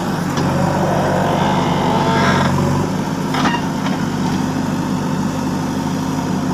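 JCB backhoe loader's diesel engine running steadily, with a couple of short sharp clanks.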